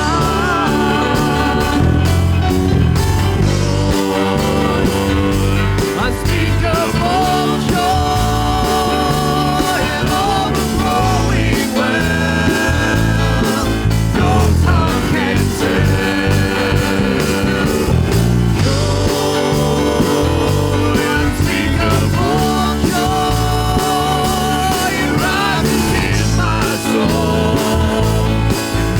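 Live worship band playing an instrumental passage: steady bass and rhythm under a long, wavering lead melody line.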